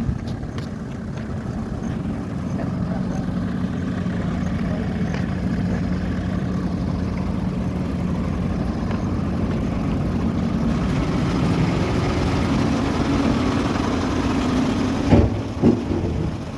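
Heavy-equipment diesel engine running steadily at low revs, its hum swelling slightly partway through, with two sharp metallic knocks about half a second apart near the end.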